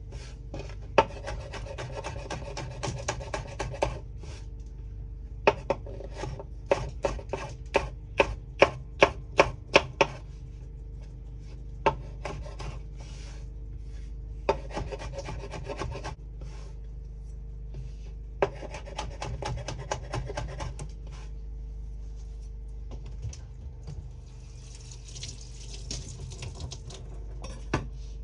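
Chef's knife slicing small sweet peppers on a bamboo cutting board: runs of quick strokes with the blade knocking on the wood, broken by pauses. In the middle comes a slower row of about ten sharper chops, roughly two a second.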